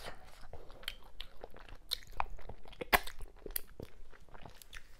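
Close-miked eating: a person chewing a mouthful of fufu and okra-ogbono soup, with wet lip smacks and mouth clicks, one sharper click about three seconds in.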